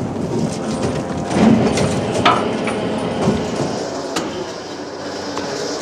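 Irregular knocks and clanks of gear aboard a working fishing boat, over a steady engine and water noise.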